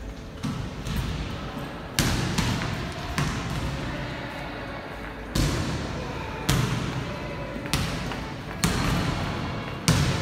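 A basketball bouncing on an indoor hardwood court, about eight irregular thuds roughly a second apart, each with a short echo from the hall.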